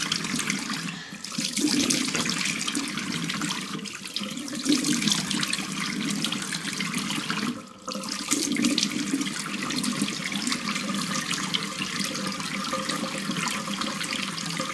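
Bathroom tap running steadily into the sink, with water splashing as face wash is rinsed off the face by hand.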